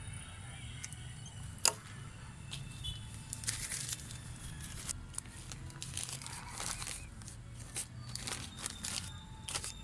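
Black plastic nursery polybags crinkling and rustling in short spells as they are handled during potting of a rooted apple sucker, with one sharp click about a second and a half in.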